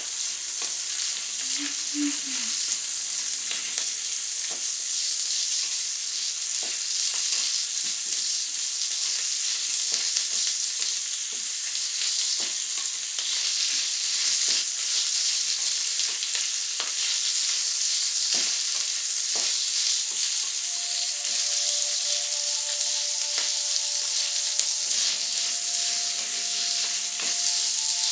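Onions sizzling and crackling as they fry in hot oil in a wok, with stirring strokes now and then.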